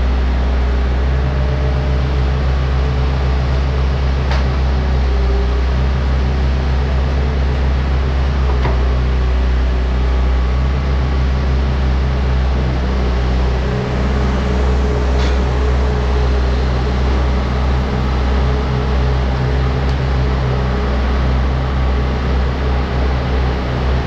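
Diesel engine of a New Holland skid steer loader running steadily as it carries a load of slab wood, with a few faint knocks.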